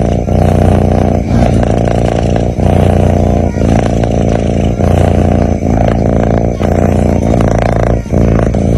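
Sleeping cat snoring loudly, a continuous low rumble with each breath, broken by short pauses about once a second.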